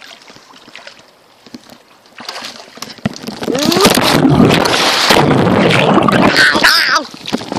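Phone sealed in a ziploc bag plunged underwater in a pool: loud rushing, bubbling water against the bagged microphone, building from about two seconds in and dropping off sharply about seven seconds in.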